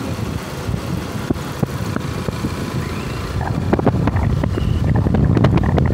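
Wind rushing over the microphone on a moving motorcycle on a gravel road, over a low rumble of the ride, with scattered short clicks. It gets louder about halfway through.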